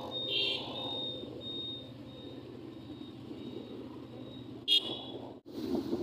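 Steady engine and road noise from a vehicle travelling along a highway, with a faint high beep repeating about twice a second. Near the end there is a sharp click, the sound drops out for a moment, then it returns with louder wind noise.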